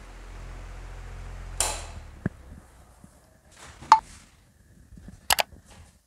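Electric pedestal fan, its motor bushings freshly cleaned and lubricated, running with a low motor hum and air noise that slowly fade. About a second and a half in the hum stops with a short rustling burst. After that come a few light clicks, a sharp metallic ping about four seconds in and a quick double click.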